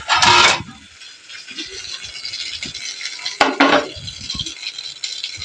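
Hot oil sizzling steadily as masala-coated idli pieces deep-fry, with two short louder bursts, one just after the start and one about three and a half seconds in.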